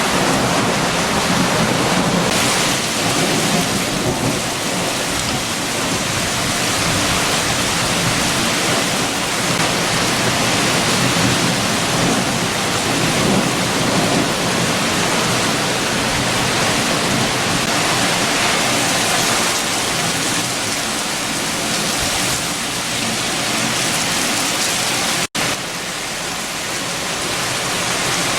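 Heavy rain falling steadily with strong wind, a continuous dense hiss with a low rumble underneath. Near the end it cuts out for an instant and then resumes.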